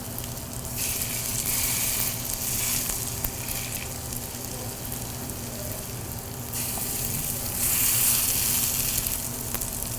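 Potato pancakes sizzling as they fry in butter and canola oil. The hiss swells louder for about a second near the start and again for a couple of seconds in the second half.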